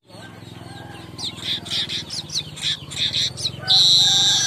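Manyar (weaver bird) song: a run of quick, high chattering chirps, then a loud, drawn-out buzzy wheeze that starts about a second before the end.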